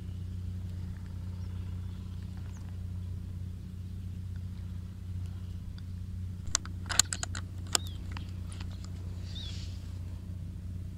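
A steady low hum with a quick run of about six sharp clicks and knocks, spread over just over a second, a little past the middle.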